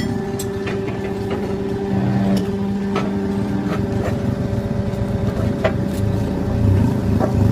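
An engine running steadily, with scattered short metallic clicks and taps.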